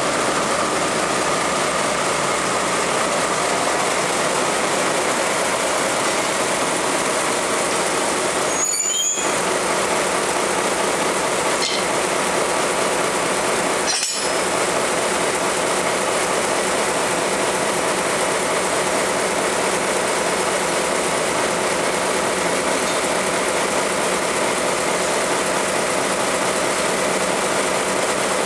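DE10 diesel locomotive's V12 diesel engine idling steadily close by. The sound drops out briefly twice, about nine and fourteen seconds in.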